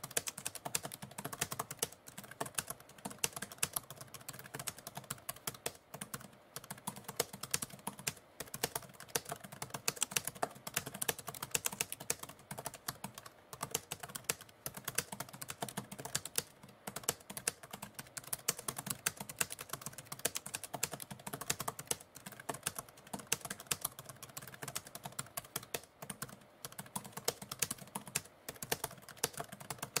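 Typewriter keys clacking in a fast, steady run of typing, with a few short pauses.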